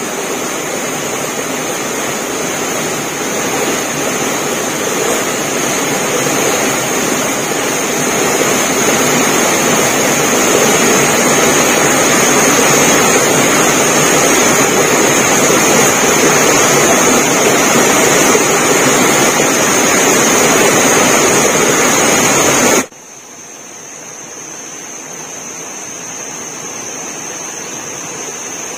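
Rushing stream water, a steady loud rush with a thin steady high-pitched tone over it. Near the end it cuts off abruptly to a much quieter rush.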